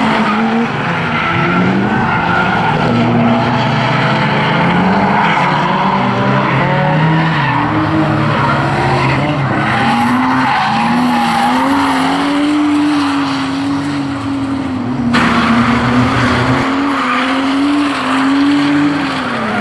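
Drift cars' engines revving hard, the pitch rising and falling with the throttle, over the steady screech of spinning rear tyres as the cars slide sideways. The sound switches abruptly to another car about fifteen seconds in.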